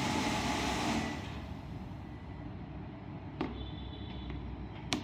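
Television soundtrack playing through the set's speaker, cutting off about a second in. Then low room noise with two short clicks.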